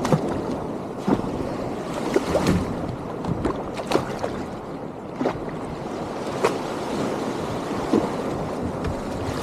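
Waves washing and breaking over marsh grass: a steady wash of water with wind on the microphone, broken by short sharp splashes and knocks every second or so.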